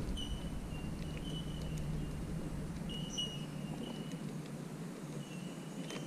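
Small birds calling in short, thin, high whistles that come and go, over a low wind rumble that dies away about two-thirds of the way through.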